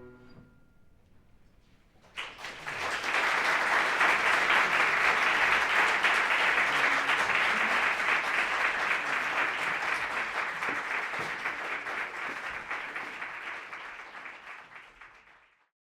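The last held chord of the ensemble dies away, and after about two seconds of quiet an audience breaks into applause. The clapping peaks early, slowly tapers, and cuts off abruptly just before the end.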